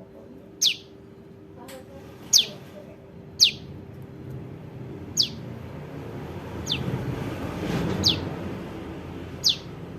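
Juvenile prenjak lumut calling: short, sharp notes, each sweeping quickly downward in pitch, seven of them repeated every second or two. A low rumble swells up behind the calls near the end.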